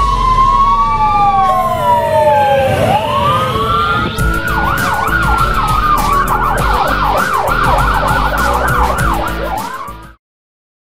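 American police car electronic sirens, more than one sounding at once: slow rising and falling wails, then, from about four seconds in, a fast yelp warbling about three times a second, over a low rumble. The sound stops abruptly near the end.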